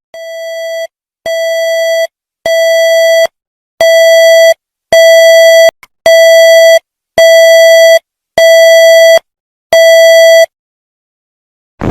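Synthesized electronic alert beeps: nine buzzy tones at one steady pitch, each under a second long and evenly spaced. They grow louder over the first four, then hold at full volume.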